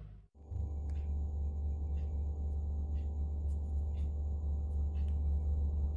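Steady low hum with a few faint clicks on top. It starts after a brief dropout near the start.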